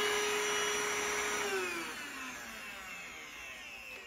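Grundig VCH 9631 cordless stick vacuum running with a steady motor whine, switched off about a second and a half in; the whine then falls in pitch and fades as the motor winds down.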